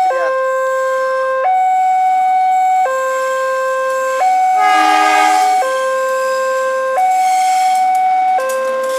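Railroad level-crossing warning alarm sounding a steady two-tone signal, switching between a lower and a higher tone about every one and a half seconds to warn of an approaching train. About five seconds in, a short horn blast sounds over it.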